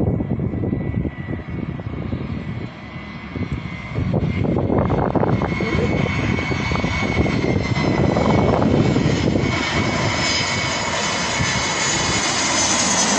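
VietJet Air Airbus A320-family jet airliner on landing approach, its engine noise swelling from about four seconds in as it nears overhead, with a high fan whine over the roar. Gusty wind rumble on the microphone fills the first few seconds.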